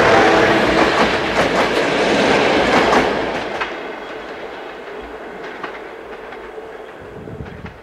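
Passenger train of coaches behind an electric locomotive passing close by, the wheels clattering over the rail joints. From about three seconds in the clatter fades steadily as the train pulls away round the curve.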